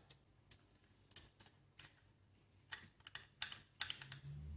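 Faint, scattered metallic clicks and taps as a long coil mainspring and its spring guide are fitted into an air pistol's cylinder during reassembly. Low handling noise comes in near the end.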